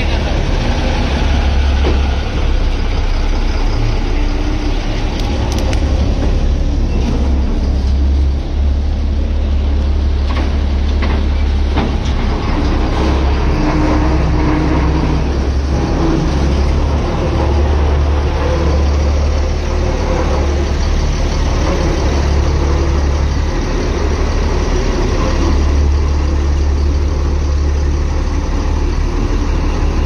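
Hira combine harvester's diesel engine running steadily with a low, continuous rumble.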